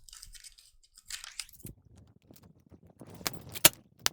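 Small scratching and handling noises while solder is cleared from the circuit board's component holes, then three sharp clicks a little after three seconds in and near the end, the middle one the loudest.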